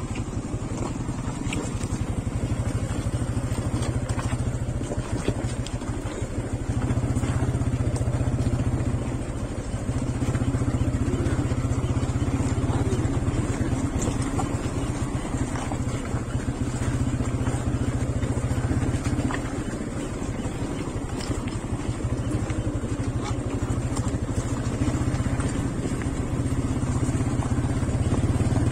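TVS Apache 180 motorcycle's single-cylinder engine running at low speed over a rough dirt track, its note getting louder and softer as the throttle is opened and eased.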